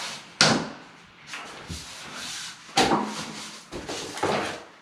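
Waterproof plank flooring being handled and fitted by hand: several sharp knocks and clacks of planks against each other and the floor, the loudest about half a second in and near three seconds, with rubbing and sliding of the planks between.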